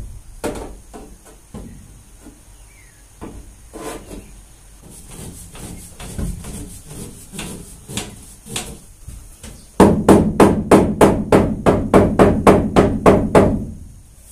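Steel roof rib of a van being set back in place under the sheet-steel roof: scattered knocks and bumps as it is lined up, then from about ten seconds in a fast run of hammer blows on the rib, about four or five a second, for some four seconds.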